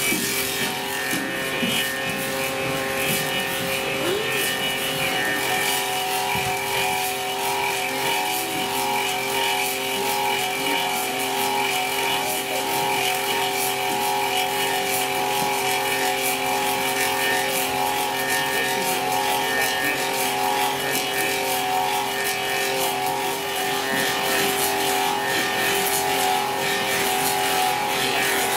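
Clog-copying lathe carving a wooden clog from a template. A steady machine whine with several held tones runs over the crackling hiss of the cutter working through the wood.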